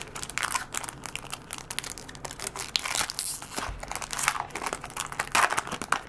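The foil wrapper of a Pokémon trading card booster pack is torn open and crumpled by hand. It crinkles and tears in quick, irregular crackles, loudest about three seconds in and again near the end.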